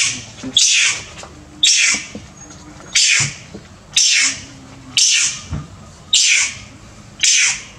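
Young long-tailed macaque screaming in pain as its wound is cleaned: shrill cries repeated about once a second, each one falling in pitch.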